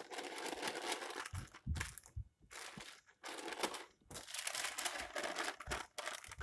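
Paper crinkling and rustling as hands fold it over and press it down on a warm slab of peanut brittle mixture, with brief pauses around two and three seconds in.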